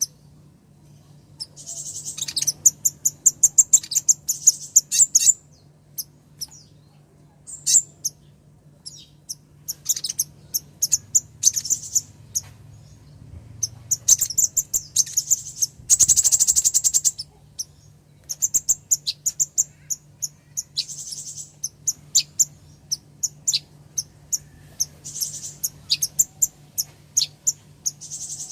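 Female kolibri ninja sunbird calling: quick runs of high, sharp chips in repeated bursts, with a denser buzzy trill about halfway through. These are the calls by which the female summons a male.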